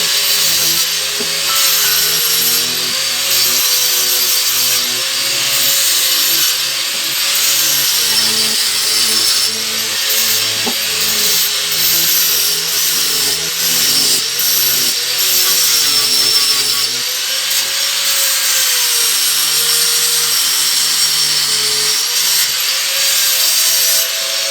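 Wood being cut with a saw, a steady rasping hiss, under background music with a stepping bass line.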